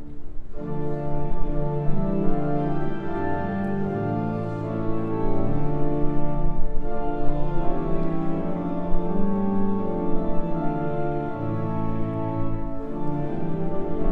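Church organ playing a hymn in sustained block chords that change every second or so, after a brief break between phrases at the start.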